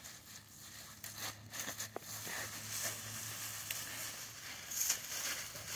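Dry fallen leaves and dead grass rustling and crunching as a dog roots through them with its head down, in irregular crackles, loudest about five seconds in.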